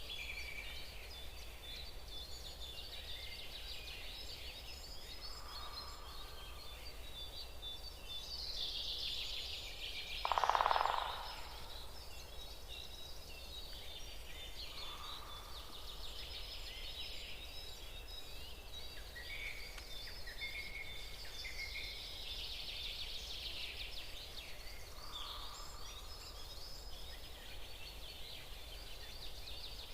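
Woodland birdsong: many small birds chirping and trilling high and continuously. Underneath, a lower call comes roughly every ten seconds, and one louder, deeper call lasts about a second, about ten seconds in.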